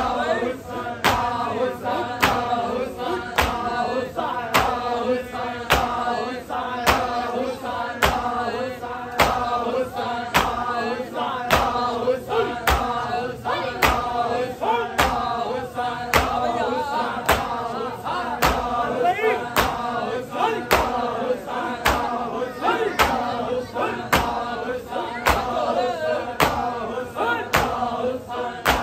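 A group of men chanting a noha in unison, with sharp rhythmic slaps about three every two seconds: matam, the mourners beating their chests in time with the lament.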